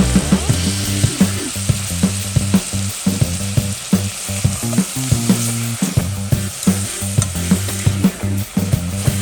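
Food sizzling in a hot pan as it is stirred, with frequent short clicks of the utensil against the pan.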